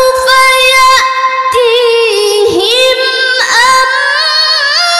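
A young woman's voice in melodic Quran recitation (tilawah), chanted into a microphone. She holds long notes with ornamental turns and glides in pitch, with a couple of brief breaks.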